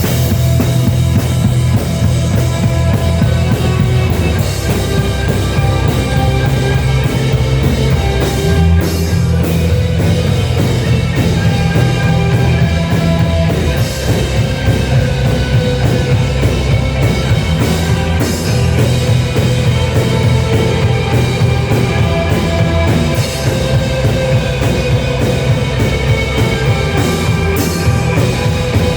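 Rock music with a full drum kit, heavy kick drum and bass, playing loud and steady without a break.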